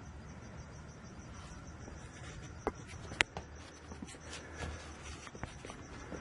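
Faint, steady cricket chirping over a low hum, with a few light clicks.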